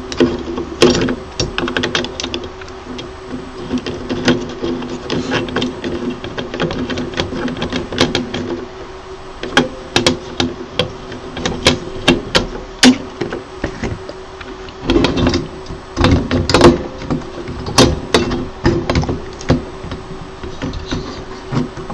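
Irregular small clicks, taps and scrapes of a hex screwdriver and metal parts as screws are undone from a small cooling fan and the light-source heatsink inside a resin printer, over a steady low hum. Louder knocks come in the second half as the metal heatsink is handled.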